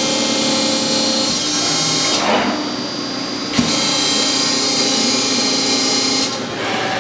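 Cincinnati CNC hydraulic press brake running through a bending cycle: its hydraulic system and moving ram give a loud, steady, whining machine noise that drops away briefly about two seconds in and again near the end, with one sharp click a little past halfway.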